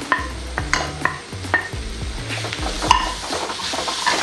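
Onions with ginger-garlic paste sautéing in oil in a pan, with a light sizzle. A spatula scrapes and knocks against the pan in quick, irregular strokes as it is stirred, and a few knocks ring briefly.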